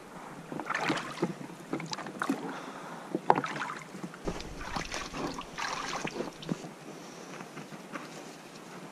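Oars dipping and splashing in the water as a small inflatable dinghy is rowed, in irregular strokes.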